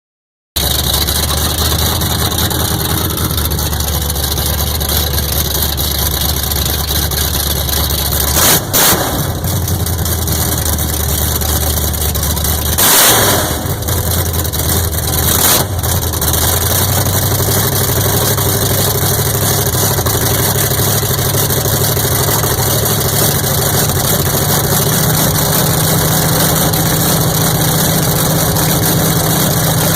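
Engine running on race gas, idling steadily; its idle climbs to a higher, faster note about halfway through. A few brief loud rushes of noise break in near the middle.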